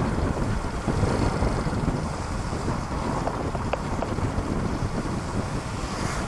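Wind buffeting the microphone on a moving motorcycle, a steady rumbling rush with the motorcycle's engine and exhaust mixed in underneath.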